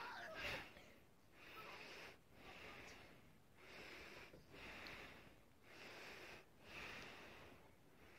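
Faint, heavy breathing close to the microphone, a regular puff about once a second.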